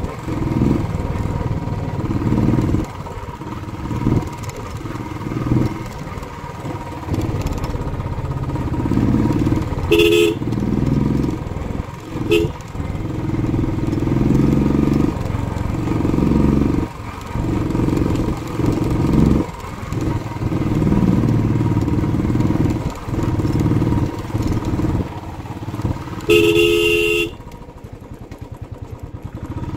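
Royal Enfield Classic 350 single-cylinder engine running under way, its revs rising and falling with the throttle. The motorcycle horn beeps twice briefly about ten seconds in and sounds once for about a second near the end, after which the engine drops to a quieter, slow regular beat.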